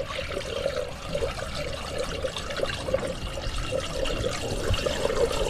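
Water pouring from a bottle into the radiator of a Massey Ferguson 178 tractor, running with an uneven, pulsing gurgle as the cooling system fills.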